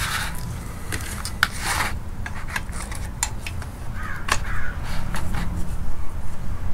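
Sharp clicks and short scraping rubs as the shift cable ends are worked into a short shifter box, a tight fit for the cable clip. A crow caws a couple of times about four seconds in.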